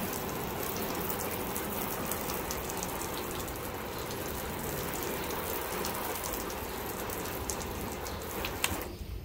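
Water from a garden hose nozzle on its sprinkler pattern spraying and pattering steadily on a car's painted hood, cutting off shortly before the end.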